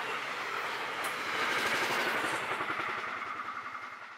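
Container freight train's wagons rushing past at speed, steel wheels clattering on the rails in a rapid regular rhythm. The sound fades away near the end.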